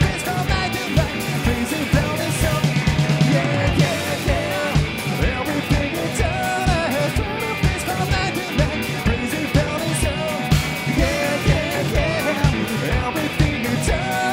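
Live rock band playing: distorted electric guitars through Orange amplifiers over a steady drum-kit beat, with a sung vocal line.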